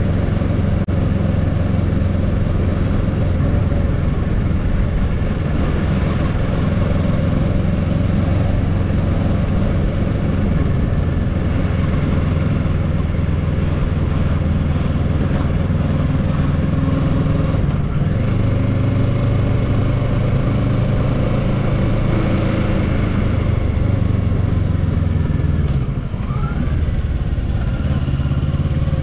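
2022 Kawasaki Z650's parallel-twin engine running steadily under way, with wind rush over the microphone. The engine note shifts pitch partway through and dips briefly near the end.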